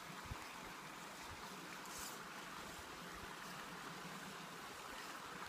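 Small rocky creek running over stones, a faint steady rush, with a few soft low bumps.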